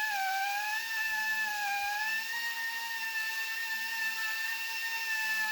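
High-speed power tool motor running under light load with a steady, high whine that wavers slightly in pitch, reaming out the middle of a large steel nut.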